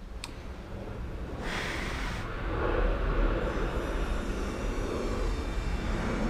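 Propane torch: a short hiss about a second and a half in, then the flame's steady roar for a few seconds as it heats a knife blade for melt-welding urethane belting.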